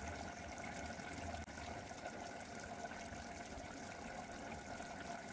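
Faint, steady hiss with a low hum underneath, with no distinct strokes or knocks.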